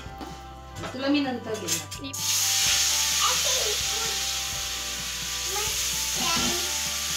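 Jowar-flour batter sizzling on a hot tawa as it is ladled on and spread: a steady frying hiss that starts suddenly about two seconds in. Brief voices come before it.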